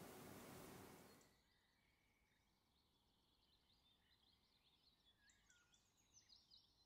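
Faint room hiss that fades out about a second in, then near silence with faint, quick bird chirps that grow busier toward the end.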